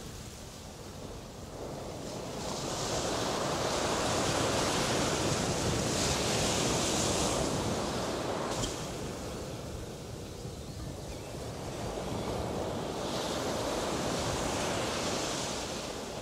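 Sea waves breaking and washing up a shore in two slow swells, each rising to a foamy hiss and then fading back.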